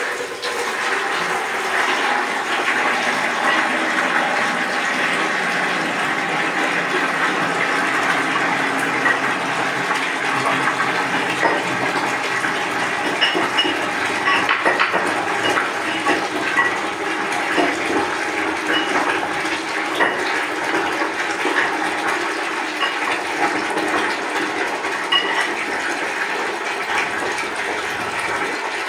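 Water running steadily into an Indian squat toilet pan and down its outlet, washing debris out of a blocked P-trap.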